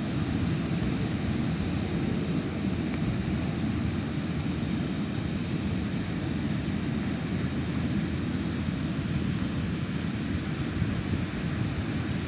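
Wind rumbling on the microphone: a steady low roar without distinct events.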